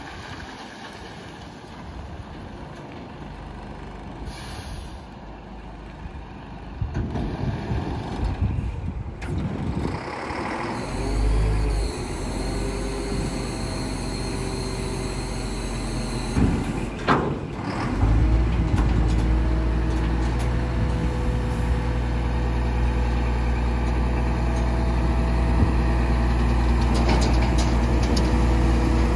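Scania P420 hooklift truck's diesel engine driving slowly, then a sharp air-brake hiss about 17 seconds in as it stops. After that the engine runs loud and steady at raised revs, driving the JOAB hook-arm hydraulics as the container is tipped off the back.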